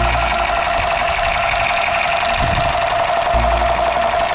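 Battery-operated light-up toy gun playing its electronic machine-gun firing sound effect through its small speaker: a loud, rapid, buzzy rattle that holds steady. A couple of low thumps come from handling the toy.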